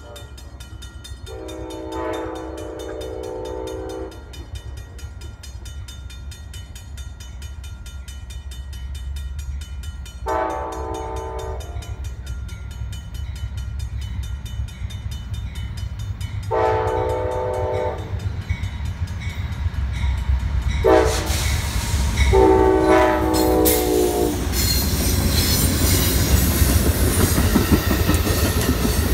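Amtrak passenger train led by GE P42DC diesel locomotives sounding its multi-tone air horn in a series of blasts: three long ones several seconds apart, then a short and a long at a grade crossing. After the last blast the rumble and wheel noise of the locomotives and Superliner cars grow loud as the train passes.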